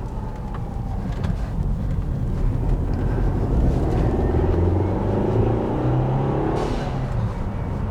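Turbocharged engine of a 2012 Mercedes C250 accelerating, heard from inside the cabin, its pitch rising and growing louder over the first few seconds. Near the end comes a brief faint hiss as the aftermarket Go Fast Bits diverter valve vents boost, not very loud inside the car.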